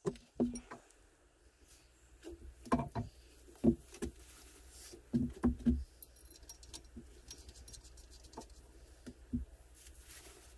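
Irregular light knocks and clicks, a few louder clusters among them, over a faint low hum.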